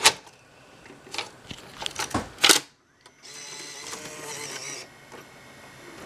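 Clicks and clunks of a Sony Betacam SP camcorder's cassette mechanism, followed about three seconds in by a short steady whir as the tape transport loads and threads the tape.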